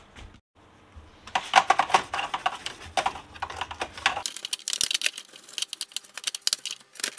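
A brush scrubbing the plastic parts inside an inkjet printer: rapid, scratchy, clattering strokes that start about a second in and keep on.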